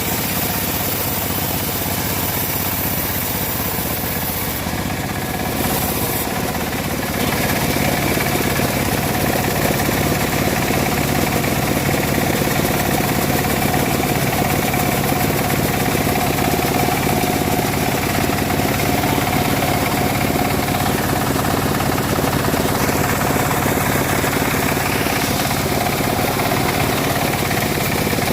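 Engine of a homemade bandsaw mill running steadily while sawing dry teak; it gets louder about seven seconds in and then holds steady.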